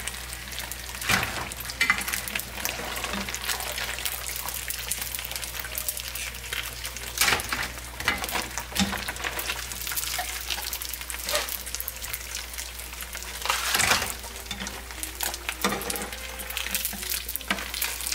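Pieces of rolled rice noodle sheet (phở cuốn) sizzling steadily as they fry golden in hot oil, with a utensil knocking and scraping against the pan several times.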